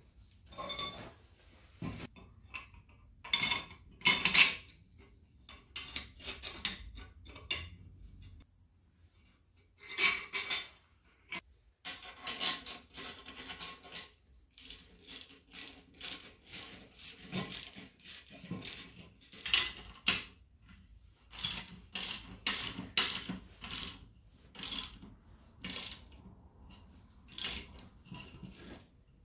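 Socket ratchet wrench clicking in short, irregular runs as nuts are tightened onto bolts through a steel frame, with clinks of steel parts and tools being handled between the runs.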